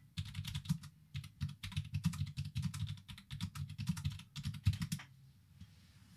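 Rapid typing on a computer keyboard: a quick run of key clicks that stops about five seconds in.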